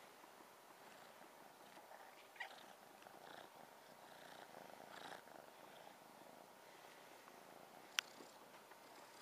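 A kitten purring faintly and steadily, close to the microphone, with one sharp click about eight seconds in.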